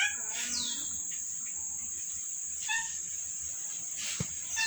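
Steady high-pitched insect buzzing, with a few short chirping animal calls over it and one sharp click about four seconds in.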